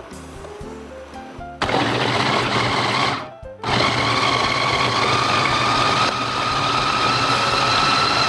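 Electric food chopper with a glass bowl running, its blade grinding roasted shallots, garlic, ginger, candlenut and kencur with a little water into a spice paste. The motor starts about a second and a half in, stops for a moment after about three seconds, then runs on steadily with its whine rising slightly in pitch.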